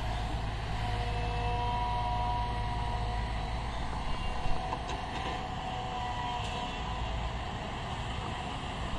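Diesel engines of a JCB tracked excavator and a tipper truck running steadily during loading: a low, continuous rumble with a faint whine that comes and goes. A brief knock about four and a half seconds in.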